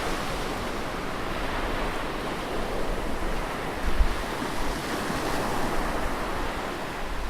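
Ocean surf washing close on a sandy beach, a steady rushing hiss of breaking and receding water. There is a brief low wind buffet on the microphone about four seconds in.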